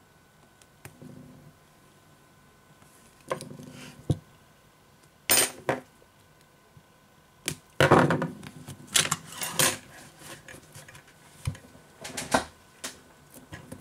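Handling noise from work on a tablet display with double-sided acrylic tape: scattered clicks and taps and short scraping rustles, the loudest about five seconds in and again from about eight to ten seconds in.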